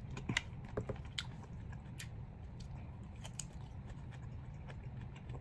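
Close-up biting and chewing of a piece of pineapple that is still unripe, with scattered short wet crunches and clicks, over a steady low hum.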